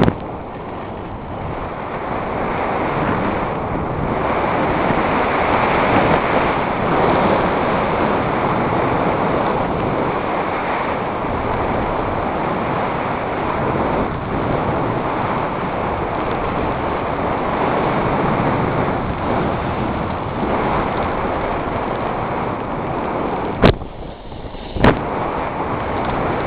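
Wind rushing over a helmet camera's microphone at skiing speed, mixed with the hiss of skis sliding on snow. Two sharp knocks about a second apart near the end.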